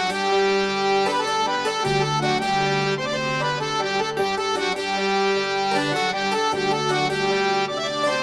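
Instrumental interlude of a qawwali song: a harmonium plays a melody of held, changing notes.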